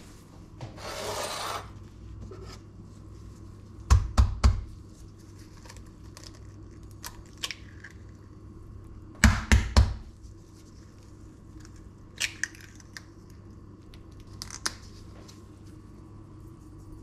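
Two eggs are tapped sharply on the rim of a ceramic bowl to crack them, about three quick knocks each time, first about four seconds in and again about nine seconds in. Lighter clicks of shell on the bowl follow. There is a short rustle about a second in.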